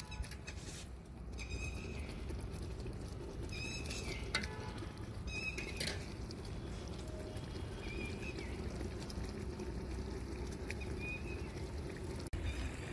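Chicken masala cooking in a brass pot over an open fire, a steady low noise of the simmer and flame. Short bird chirps come five or so times, and there are a few light clicks.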